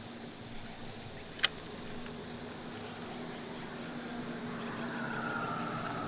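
A motor vehicle going by at a distance over a steady low hum: it grows louder over the last couple of seconds with a slightly falling whine. A single sharp click comes about a second and a half in.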